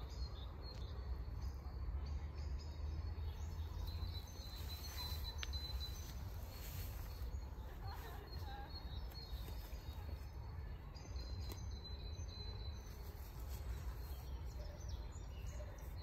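Outdoor ambience of birds chirping now and then over a steady low rumble.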